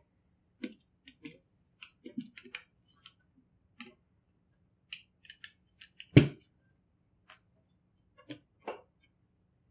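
Small clicks and taps of the metal parts of a disassembled Winchester Model 62 pump-action .22 rifle being handled and wiped during cleaning, with one louder knock about six seconds in.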